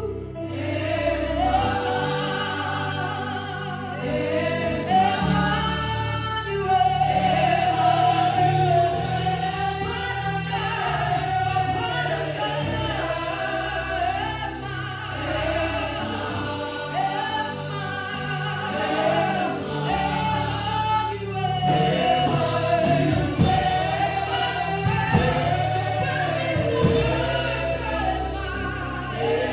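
A choir or congregation singing a gospel worship song over steady instrumental backing with sustained bass notes.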